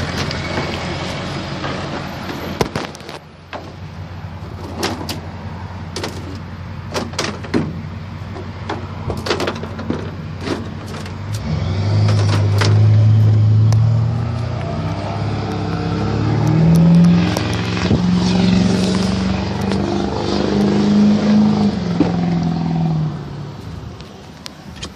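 Truck engine pulling away and accelerating, its pitch rising in steps with dips between them as it shifts up through the gears. Before it, in the first half, there are scattered sharp clicks and rustling.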